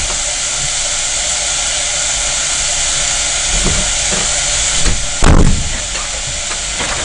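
Beef slices sizzling steadily as they fry in sesame oil in a pot over low heat, with one loud thump about five seconds in.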